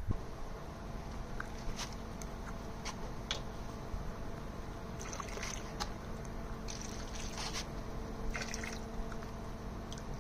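Liquid poured from a small plastic bottle into hot tub water, trickling and splashing in short runs with scattered drips, over a steady machine hum.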